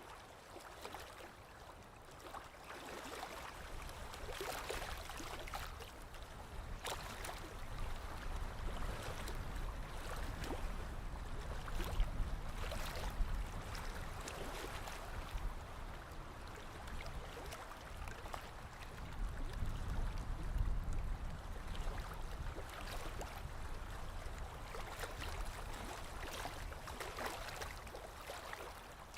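Small lake waves lapping on the shore: irregular soft splashes and gurgles over a low rumble, rising and falling in level every few seconds.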